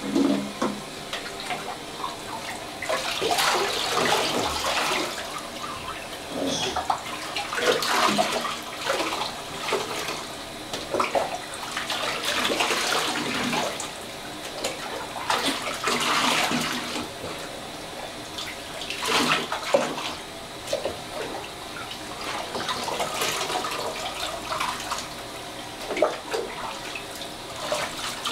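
Water sloshing and being poured over a small dog standing in a partly filled bathtub, in irregular splashes and pours.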